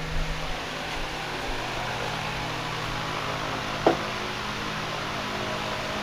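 Steady mechanical hum and hiss, with a few light clicks near the start and one sharp click about four seconds in.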